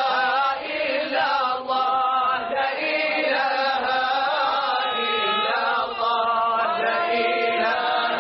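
Men's voices chanting a Sufi devotional song (samaà) together in a slow melodic line with long held notes. The sound is muffled and lacks highs, like an old tape recording.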